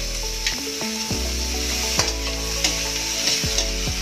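Shrimp, garlic and onion sizzling in butter in a hot wok, with several sharp clicks of a metal spoon and spatula against the pan as they are added and stirred. Soft background music runs underneath.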